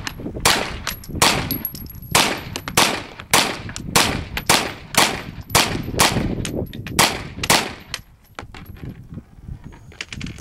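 Hi-Point 995TS 9mm semi-automatic carbine firing a steady string of about fourteen shots, roughly two a second, stopping about seven and a half seconds in.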